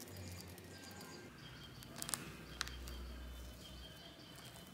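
White snow slime studded with polymer-clay fruit slices being pressed and pulled apart by hand, giving a faint crackle with a few sharp clicks about two seconds in.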